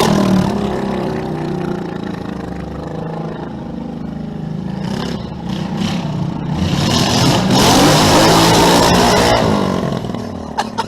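Motor vehicle engine running, then revving up loud about seven seconds in and easing off near the end.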